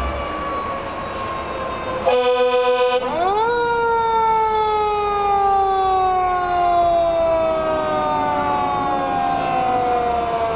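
Fire engine siren winding slowly down in pitch, cut across about two seconds in by an air horn blast of about a second. The siren then climbs quickly back up and slowly falls again.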